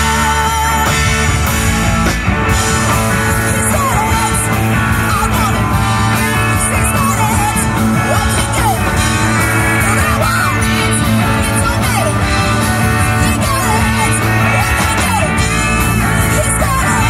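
Live rock band playing: a woman sings lead over electric guitars and a drum kit.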